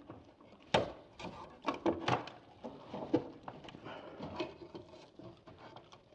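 Electrical wire being pulled by hand through a hole in a plastic old-work box in drywall: irregular scraping and rustling with sharp clicks and knocks, the loudest about three quarters of a second in and again about two seconds in.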